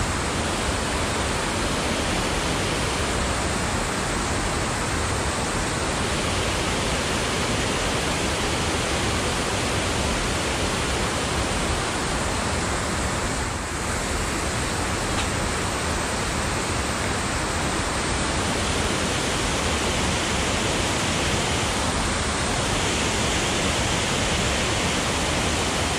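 Steady rushing of water pouring over a dam's waterfall.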